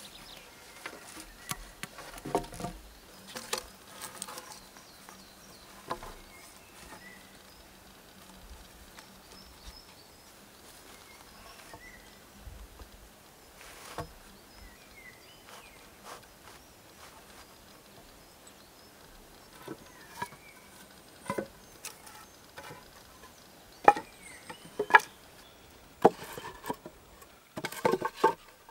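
Peeled wooden poles knocking against each other and the ground as they are handled and laid side by side for a shelter floor: scattered sharp knocks, a few early on, then a cluster of louder ones near the end, over a faint forest background.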